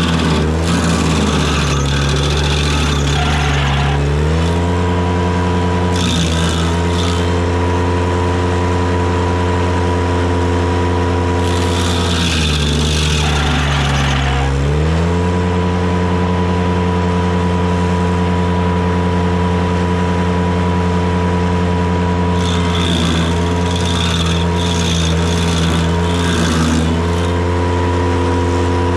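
Ventrac tractor engine running hard, driving a KC220 stump grinder's cutter wheel. The engine note sags under load twice, near the start and about halfway through, as the cutter bites into the stump. Bursts of harsh grinding noise come several times as the teeth chew through wood and dirt.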